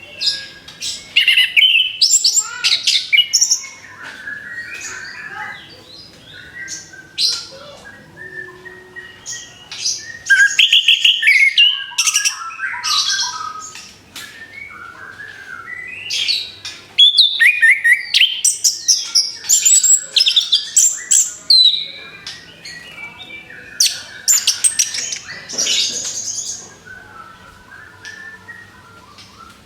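Orange-headed thrush singing: loud bursts of rapid, varied whistled and chattering phrases, about four of them, with quieter twittering in between.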